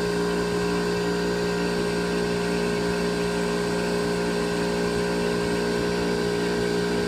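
Induction motor run as a capacitor-excited generator, spun by its prime mover and generating about 230 volts: a steady machine hum with several fixed tones over a hiss.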